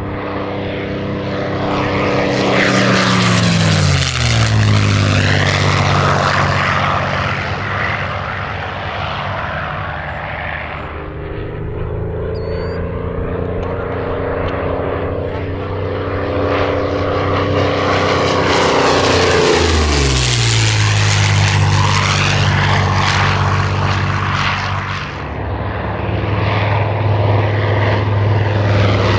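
WWII fighter's V12 piston engine and propeller on two fast passes. Each time it rises to a loud peak, then the engine note drops sharply in pitch as it goes by: about four seconds in and again about twenty seconds in.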